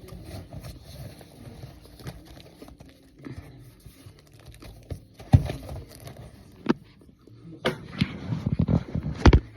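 Crinkling and crumbling as a baked brick of pressed cornstarch is handled and broken. Sharp cracks come about halfway through, and a quick run of snaps builds near the end.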